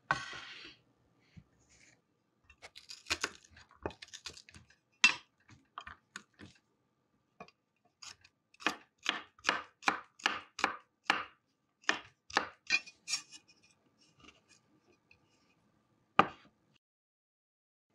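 Kitchen knife cutting garlic cloves on a wooden cutting board: scattered knocks, then a quick even run of chopping strokes about three a second in the middle. A single loud knock near the end.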